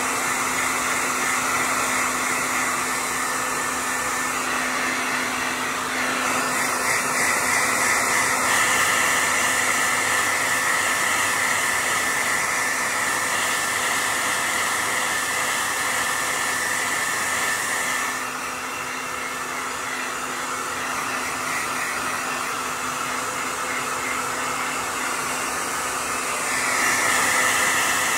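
Hand-held blow dryer running, a steady rush of air with a constant whine, blowing on a wet dog's coat. It grows louder about six seconds in, drops back around eighteen seconds, and rises again near the end.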